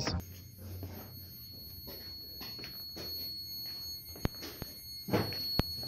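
Ultrasonic parametric speaker array giving off a steady high-pitched tone, faint against low room murmur. There are two sharp clicks and a brief bit of voice near the end.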